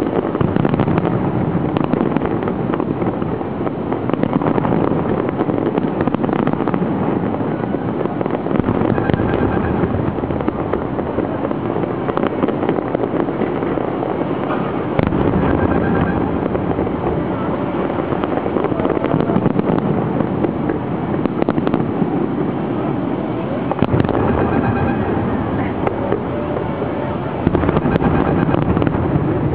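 A fireworks display in full barrage: many aerial shell bursts overlap into a continuous rumble of booms, shot through with frequent sharp cracks.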